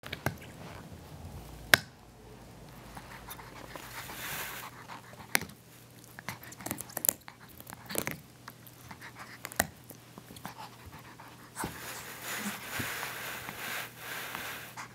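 A Pomeranian gnawing on an orange toy bone: irregular sharp clicks and knocks of teeth and paws on the toy, with stretches of the dog's breathing, the longest near the end.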